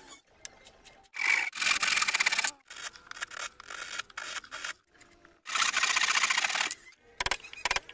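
Hand tools working wood: two loud spells of quick rasping strokes, the second a handsaw cutting through a wooden block, with quieter scraping between them. A run of sharp knocks comes near the end.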